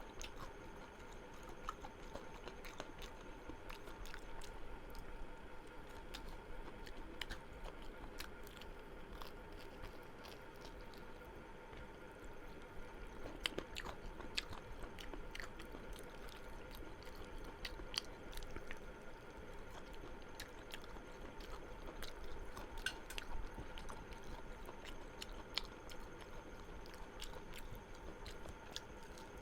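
A person chewing and biting food close to the microphone, with scattered small crunches and mouth clicks. A faint steady hum runs underneath.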